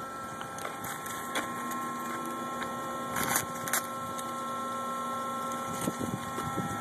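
Plastic lollipop wrapper crinkling in a short burst about three seconds in, over a steady electrical hum with a few faint high whining tones.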